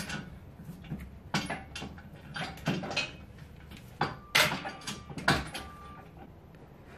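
Irregular metal clinks and knocks as steel receiver-hitch mounting brackets and bolts are handled and fitted by hand. A couple of the clanks past the middle leave a brief metallic ring.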